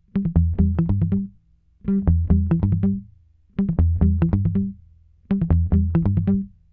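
Background music: four short phrases of plucked notes over a bass line, each about a second long, with brief pauses between them.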